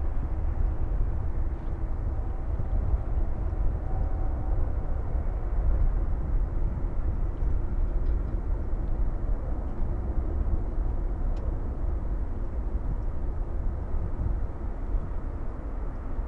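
Twin-engine jet airliner at takeoff thrust, climbing away: a steady low rumble with faint steady hums in it.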